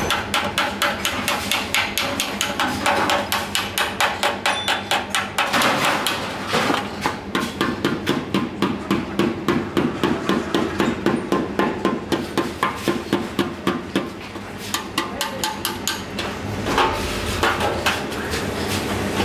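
Hand hammer beating on a sheet-steel motorcycle fuel tank, a long run of quick, even metallic blows, several a second, broken by two short pauses.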